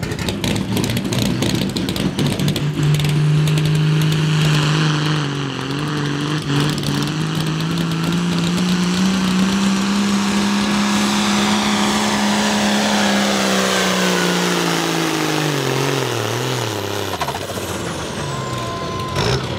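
A John Deere farm pulling tractor's diesel engine at full throttle dragging the sled. The engine pitch climbs a few seconds in, holds steady with a slight rise, then drops away over several seconds near the end as the pull finishes.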